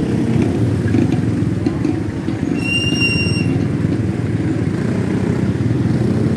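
Motorcycle engine running at low speed close by, a steady low rumble with a rapid pulse as the bike creeps through slow traffic. About halfway through there is a brief high squeal lasting under a second.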